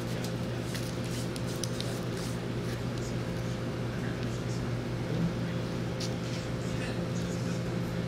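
Vintage room air conditioner running: a steady hum with fan air noise and a few faint ticks.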